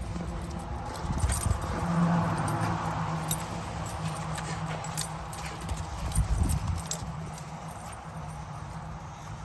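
Puppies romping in snow, their collar tags jingling in quick, irregular clinks as they run and play.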